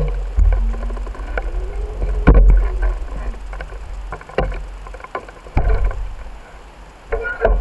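Bicycle rolling over pavement: a steady low rumble of wind and road on the microphone, broken by repeated knocks and rattles from bumps, with a faint rising tone early in the ride.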